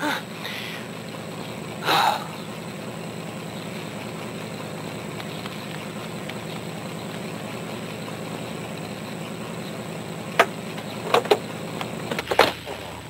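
A cartoon car's engine idling steadily. There is a short burst about two seconds in, and a few sharp clicks and knocks near the end as the driver's door is opened.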